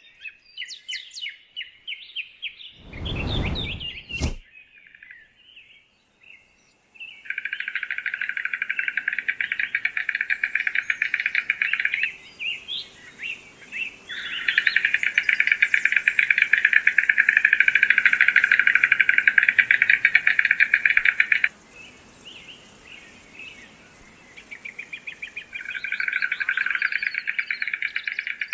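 White stork clattering its bill: long, very rapid rattling bouts, three of them, the middle one the longest and loudest, with shorter rattles early on and a brief low thump around three seconds in.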